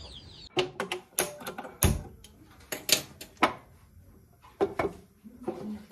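Kitchen cookware clattering: a pan and utensils being handled, giving a run of irregular sharp knocks and clicks.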